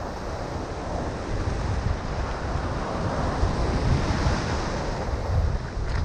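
Wind buffeting the microphone over the wash of sea waves and chop, swelling louder past the middle.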